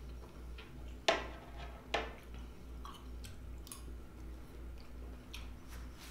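Chewing of soft melon chunks close to the microphone, with small wet mouth clicks. Two sharper, louder sounds stand out about a second apart near the start.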